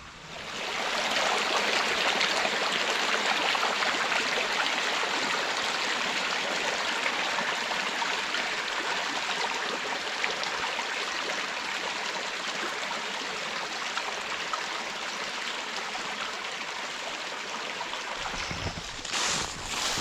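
A creek running steadily, an even rushing of water that starts abruptly about half a second in. Near the end, a few knocks and footsteps come in over it.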